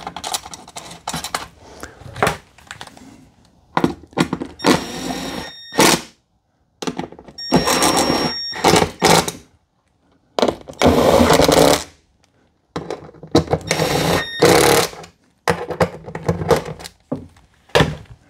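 Cordless impact driver running in four bursts of about one and a half seconds each, driving the bolts that hold the chair's metal tilt-mechanism plate to the seat. Short clicks and knocks of handling come before and after the bursts.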